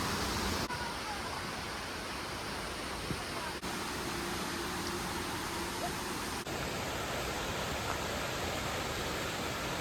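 Steady rushing of flowing creek water, with the sound shifting abruptly a few times.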